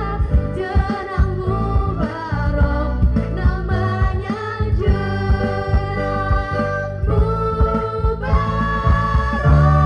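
A group of girls singing a song together into microphones, over an instrumental backing with bass and a beat.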